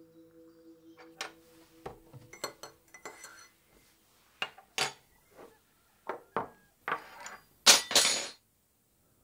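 Breakfast-table sounds: cups, dishes and cutlery clinking and knocking on a wooden table in irregular taps. Near the end comes the loudest sound, a longer scrape of a chair on the floor.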